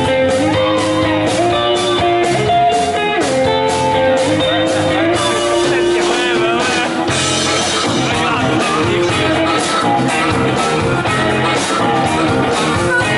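Live blues band playing: electric guitars, bass and drums, with a sustained lead line that bends its notes.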